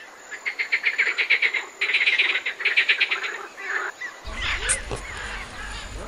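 A rapid trilling animal call, about eleven pulses a second, in two runs with a short break between. About four seconds in it stops and a low rumble comes in with other scattered calls.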